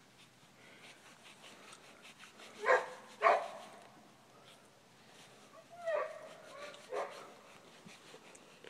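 A dog barking four times: two sharp barks about half a second apart, then two more a second apart a few seconds later.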